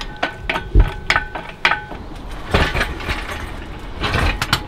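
Chain hoist ratcheting and its chain clinking while it lowers a hanging engine, with a run of sharp metallic clicks in the first two seconds, then two louder rattling bursts about two and a half and four seconds in.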